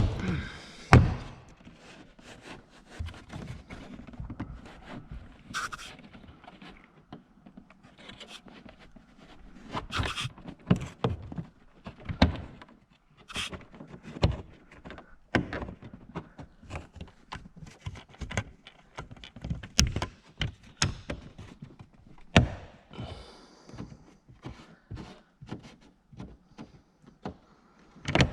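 Irregular knocks, clicks and thuds of BMW E39 interior parts being handled and fitted back into place during reassembly, with a few louder thunks at the start, about a second in and near the end.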